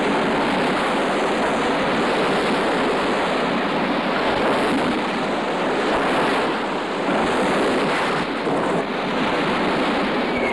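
A steady, dense rushing noise, like wind, with no distinct knocks or impacts.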